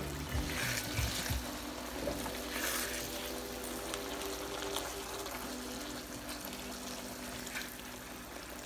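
Fish curry sauce with milk simmering and bubbling in a wok while a spatula stirs it, with a few louder noisy patches in the first three seconds. Soft background music plays underneath.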